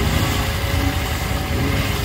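Off-road 4x4's engine running steadily, a loud low drone with its pitch wavering a little.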